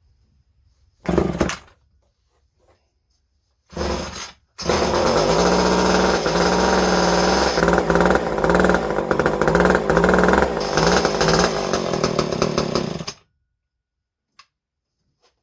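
McCulloch Mac 10-10 two-stroke chainsaw being started. Two short bursts come before it catches about four and a half seconds in. It runs for about eight seconds with its engine speed rising and falling, then cuts off abruptly, shut down by its newly fitted kill switch.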